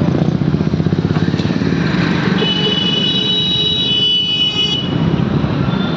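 Street traffic: a motorcycle engine running close by with a steady low rumble. A high-pitched vehicle horn is held for about two seconds in the middle.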